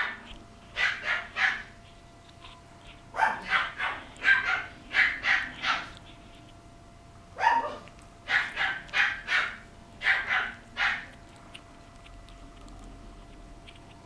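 Young puppy, about 53 days old, giving short high yips and barks in three quick runs of calls, quiet for the last few seconds.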